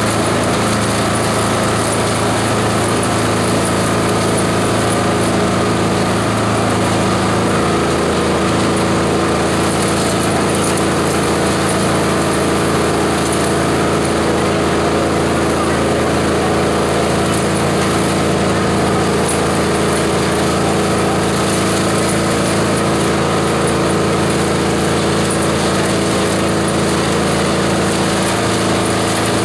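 Multi-purpose chopper-shredder machine running steadily, with an even engine-like drone that holds level throughout.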